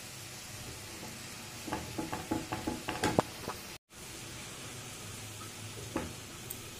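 Chopped pumpkin sizzling in a pan, with a quick run of scrapes and taps from a spatula stirring it about two seconds in. The sound drops out for a moment near the middle, then the sizzle goes on with a single knock of a metal potato masher against the pan near the end.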